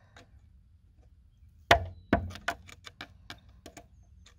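Hammer tapping a flat screwdriver wedged against the sleeve of a wheel lock nut, metal on metal: one sharp strike about a second and a half in, then a run of lighter taps, four or five a second. The sleeve is being driven loose so a bolt extractor can grip the lock nut underneath.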